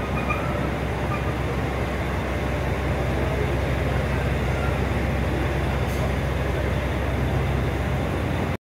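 Trains standing at a station platform: a steady low engine hum under a wash of platform noise, cut off abruptly just before the end.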